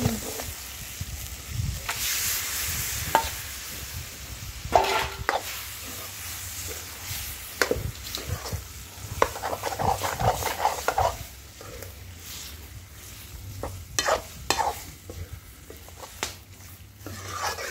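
Metal ladle stirring and scraping chicken pieces and masala around a kadai in irregular strokes, with the curry sizzling in the pan.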